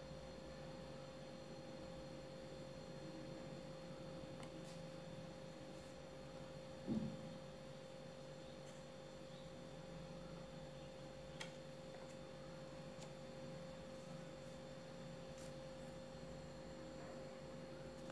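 Quiet room tone with a steady high-pitched hum, broken by one soft thump about seven seconds in and a faint click a few seconds later.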